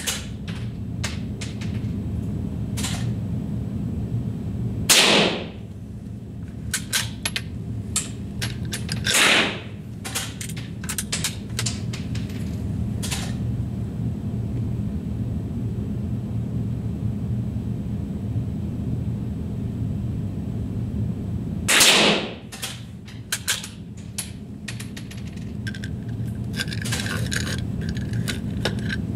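Three rifle shots, about 5, 9 and 22 seconds in, each trailing off briefly, with smaller clicks and knocks between them over a steady low hum.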